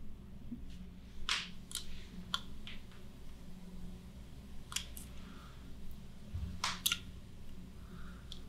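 Faint, scattered short clicks and soft rustles, about nine in all at irregular spacing, over a steady low hum.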